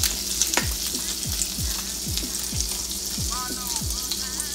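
Butter sizzling steadily in a hot pan as pancake batter is spooned in.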